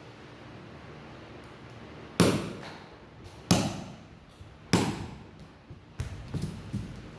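Three sharp hammer blows about a second and a quarter apart, each trailing off briefly, then a few lighter knocks: a ball bearing being tapped into a brush cutter's gearhead housing.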